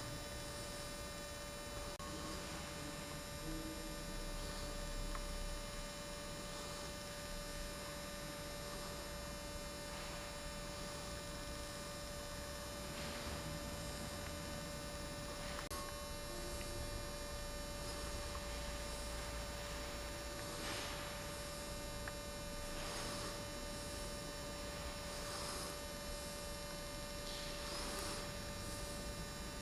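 Steady electrical mains hum with a constant mid-pitched whine over low background hiss.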